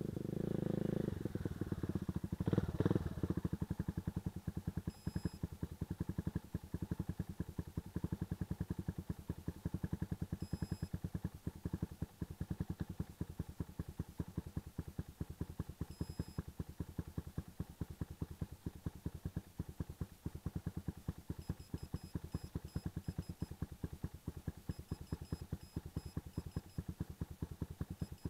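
Quad bike's engine idling close by with a fast, even pulse, after coming up loudest in the first three seconds as it pulls in. Faint high electronic beeps sound every five or six seconds and quicken into runs of rapid beeps in the last several seconds.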